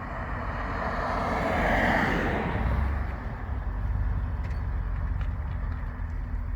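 Muffler-deleted V8 exhaust swelling to a loud peak about two seconds in, then easing back to a steady low rumble.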